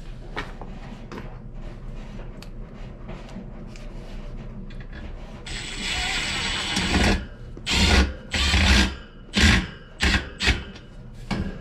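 Cordless drill-driver driving screws into a bent metal return-air grille: light clicks and rattles at first, a steady run of the driver about six seconds in, then several short loud bursts as the screws seat.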